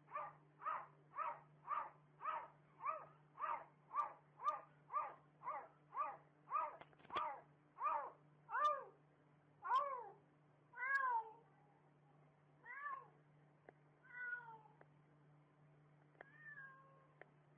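A domestic cat making a quick run of short, repeated meows, about two a second. After about eight seconds they slow to a few spaced-out calls that fade.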